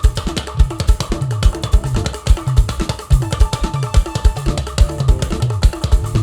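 Live praise band playing an upbeat instrumental passage: a drum kit with a steady, quick beat of bass drum and snare over low pitched bass notes.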